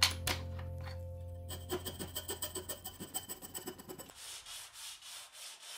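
Hand file rubbing on a walnut workpiece held in a vise, in a run of short back-and-forth strokes, slower and softer near the end.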